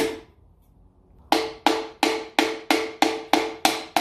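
Hammer tapping a piston down through a steel ring compressor into the cylinder bore of a Graham six-cylinder engine block. One sharp tap, a short pause, then a steady run of about ten even taps, roughly three a second, each with a brief ring.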